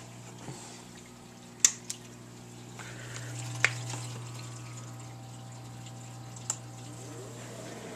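Reef aquarium equipment running: a steady low hum with water trickling, broken by a few sharp clicks.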